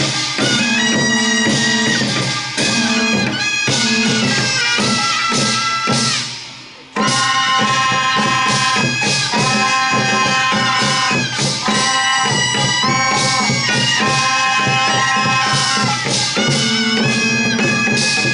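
Korean chwita military procession music: taepyeongso shawms playing a loud, nasal held melody over regular drum strokes. About seven seconds in the music dips briefly, then starts again abruptly.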